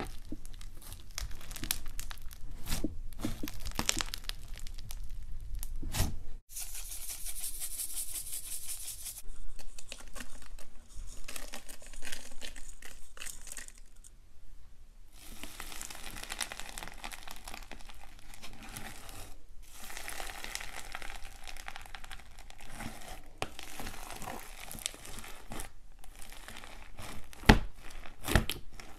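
Slime being kneaded, squeezed and poked by hand: a continuous run of crackling, crinkling pops and squishes, including foam-bead slime. The sound changes abruptly about six seconds in, eases off briefly around the middle, and a few sharper, louder pops come near the end.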